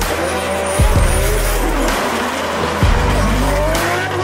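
A 1000 hp Toyota 2JZ straight-six drift car revving up and down as it slides, with tyres squealing, under background music with a beat.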